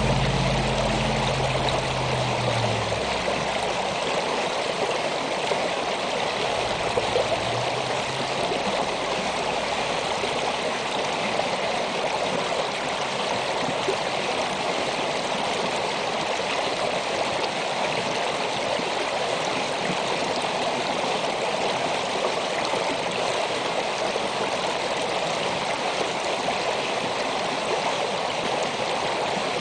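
Snowmelt stream flowing steadily over rocks, a constant rippling of water. A low rumble underneath fades out in the first few seconds.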